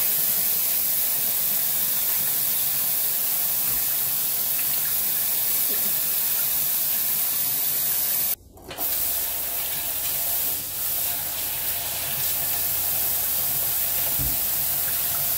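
Kitchen faucet running water into a stainless steel stockpot in the sink, a steady rush. It breaks off for a moment about halfway through, then the tap runs again, splashing over a plastic-wrapped pack of smoked meat in the sink.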